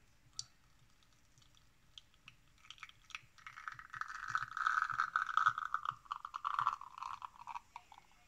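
Espresso running from a La Pavoni Europiccola lever machine's portafilter into a glass: scattered crackles and drips from about two seconds in, then a steady hissing trickle that lasts until near the end. A single click sounds under a second in.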